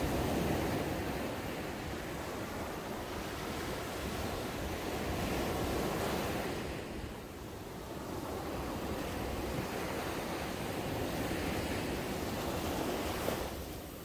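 Gentle surf: small waves breaking close in and washing up over sand, a continuous rushing hiss of water that swells and ebbs, easing briefly about seven seconds in.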